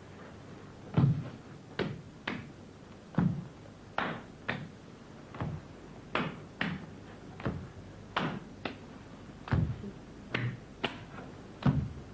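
Irregular thuds and slaps of a child hopping crouched through a line of hoops on a hard floor, feet and hands landing one to two times a second with no steady beat.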